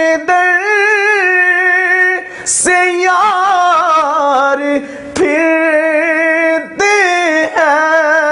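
A man singing an Urdu naat unaccompanied, drawing out long ornamented notes whose pitch wavers and turns, with short breaks between phrases.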